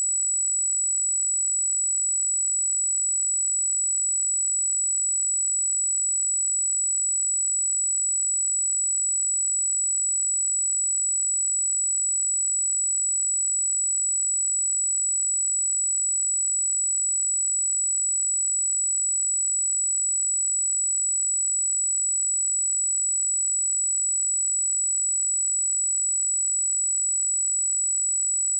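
A steady, high-pitched pure sine-wave test tone at 7864 Hz, held at one pitch and level without a break.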